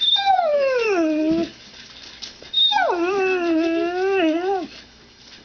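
Dog giving two drawn-out, howl-like vocal 'talking' sounds trained on cue. The first slides down in pitch over about a second and a half. The second, a second later, is held longer at a steady pitch and wobbles before it breaks off.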